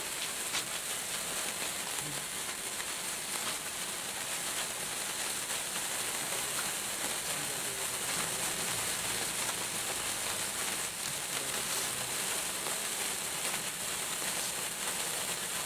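Hand-held wire sparkler (an 'electric sparkler') burning: a steady, bright fizzing hiss peppered with fine crackling ticks.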